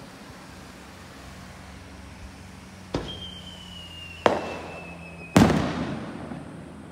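Aerial firework shells bursting: three sharp bangs spaced about a second apart, the third the loudest, with echoes trailing off. A thin, slightly falling whistle runs between the first and last bang.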